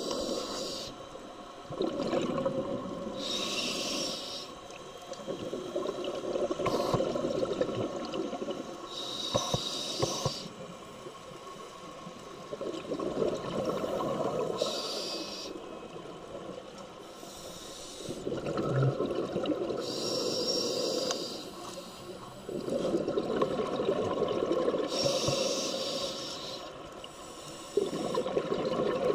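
Scuba diver breathing through a regulator underwater: a short hiss on each inhale, then a longer bubbling rush of exhaled air, about five breaths, one every five to six seconds.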